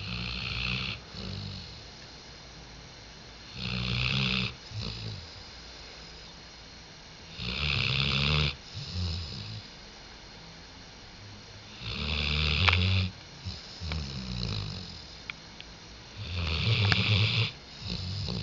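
Sleeping Labrador retriever snoring, in a steady breathing rhythm of about one cycle every four seconds. Each cycle is a louder rasping snore of about a second followed by a shorter, softer one.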